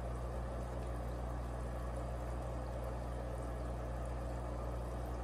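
Steady low hum under an even hiss, with no distinct events.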